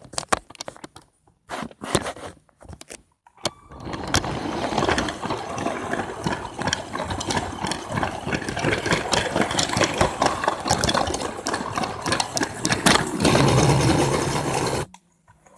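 Motorised Lego train running on plastic track, a continuous whirring rattle, stopping suddenly near the end. Before it starts there are a few seconds of separate plastic clicks and clatters.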